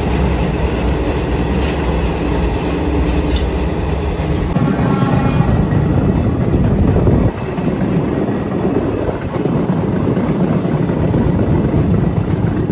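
Passenger train running on the rails, heard from inside the carriage: a steady loud rumble with clickety-clack of the wheels over the track joints.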